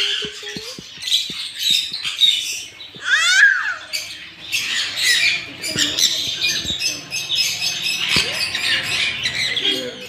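A flock of parrots in an aviary, sun conures and budgerigars among them, squawking and chattering without a break, with a shrill warbling call about three seconds in.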